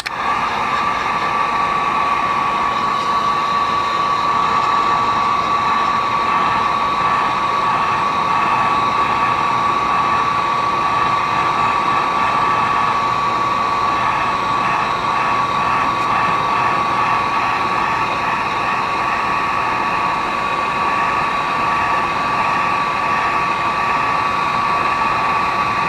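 Hot-air blower, such as a heat gun, running steadily with a clear high whine, heating the phone's screen adhesive to soften it. It switches on at the start.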